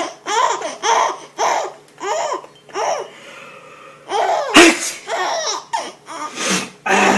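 A baby laughing in a string of short bursts, then a pause, then louder belly laughs in the second half.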